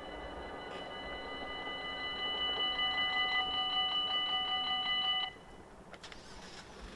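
Dutch railway level-crossing warning bell ringing rapidly, a metallic multi-tone ring, while the barriers rise. It cuts off abruptly about five seconds in as the barriers reach the top and the warning lights go out, which signals that the crossing is open again.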